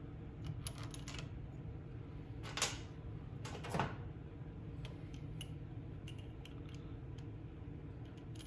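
Light clicks and taps of a small-engine carburetor and its throttle linkage being handled and fitted onto the intake, two of them sharper, about two and a half and four seconds in. A steady low hum runs underneath.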